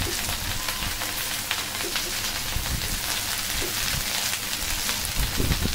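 Cut okra frying in oil in a pan: a steady crackling sizzle.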